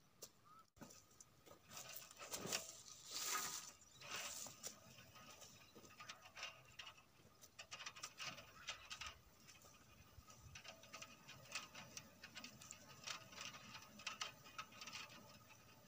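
Faint footsteps crunching and rustling through dry leaves and cut brush: irregular light crackles, loudest about two to four and a half seconds in.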